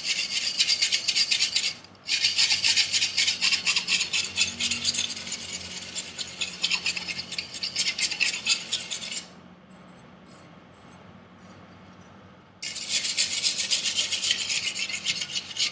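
Steel Chinese chef knife blade scraped rapidly back and forth on 320-grit sandpaper in many quick rasping strokes, removing a rolled edge and convexing it. The strokes stop for about three seconds past the middle, then start again.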